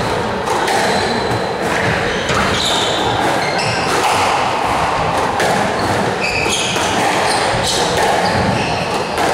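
Squash rally: the ball smacking off racquets and the court walls in quick succession, with shoes squeaking on the wooden floor. The hits echo in the hall.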